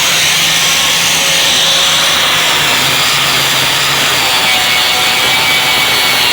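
Corded Makita angle grinder with a 40-grit Diablo abrasive disc running under load, grinding down the surface of a stair in a steady, continuous grind.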